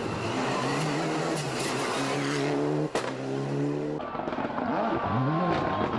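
Turbocharged World Rally Car engine at full throttle on a stage, with the pitch climbing through the revs and a sharp gear change about three seconds in. Near the end it drops off and picks up again, over tyre and road noise.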